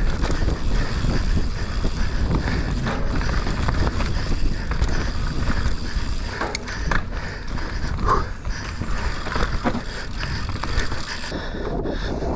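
Mountain bike being ridden downhill on a slippery trail: tyres rolling, with the chain and frame clattering in sharp knocks over bumps.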